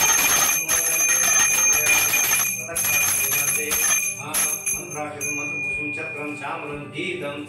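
Puja hand bell rung rapidly and continuously, with a short break about two and a half seconds in, then thinning out and fading after about five seconds. Music plays underneath.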